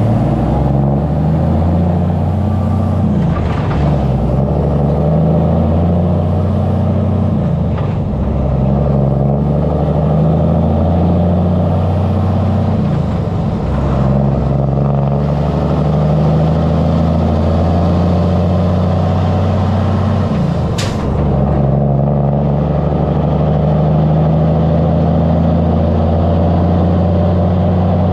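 Semi truck's diesel engine idling through twin vertical exhaust stacks, heard close up: a steady low rumble whose pitch shifts slightly now and then. A brief sharp hiss or click about three-quarters of the way through.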